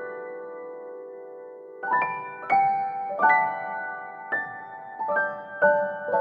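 Slow, soft piano music. A held chord dies away, then from about two seconds in single notes are struck one by one at a gentle pace.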